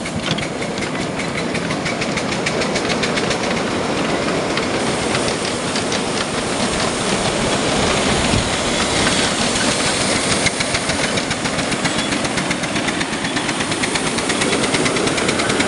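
Miniature ride-on steam locomotives running past with trains of ride-on trucks: steam hiss and a rapid, even beat of exhaust and wheel clicks over the rails.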